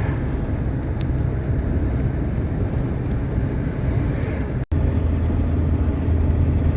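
GAZelle van driving on the road: steady engine and road rumble. The sound breaks off for an instant about two-thirds of the way through and resumes as a smoother, steadier low hum.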